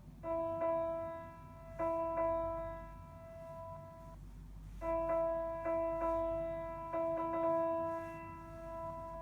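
A single electronic keyboard note, struck again and again by key presses: about ten presses in two groups with a pause between them. Each press starts with a click, and the note holds and slowly fades.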